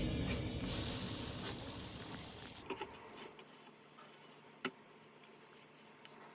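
Dosa batter sizzling on a hot griddle, starting about a second in and dying away within a few seconds. A couple of light utensil clicks follow.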